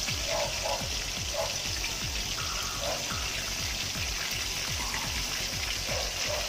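Fish steaks deep-frying in hot oil in a wok: a steady bright sizzle and bubbling of the oil, with a low pulsing about three times a second underneath.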